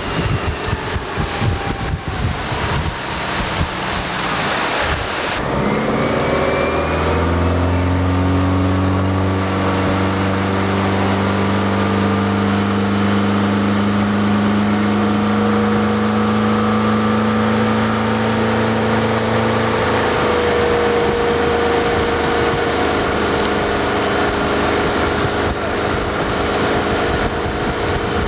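Motorboat engine running at a steady pitch, with wind and water noise. For the first few seconds there is mostly rough wind and water noise; then the engine note comes up and holds, changing slightly near two-thirds of the way through.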